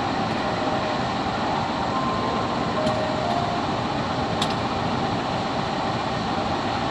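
Diesel locomotive of a passenger train running close by: a steady, even engine rumble, with a couple of brief clicks near the middle.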